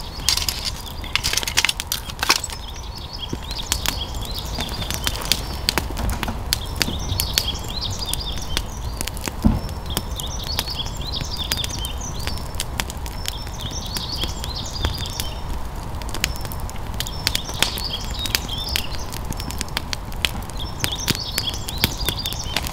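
Wood fire crackling and popping in a small campfire grill, with birds chirping in short repeated phrases in the background.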